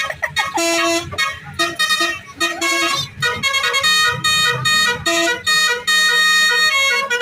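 Telolet bus horn: a multi-tone air horn playing a quick tune of short stepped notes, in several phrases with brief breaks between them.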